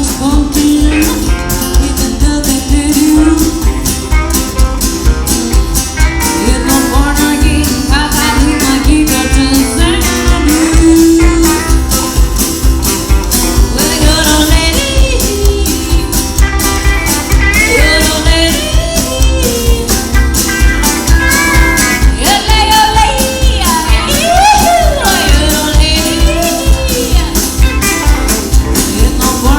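A live band playing a country song with guitar over a steady beat.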